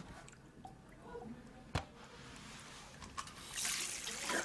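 A bathroom sink tap running, water hissing and splashing into the basin from about three and a half seconds in, after a quiet stretch broken by a single sharp click.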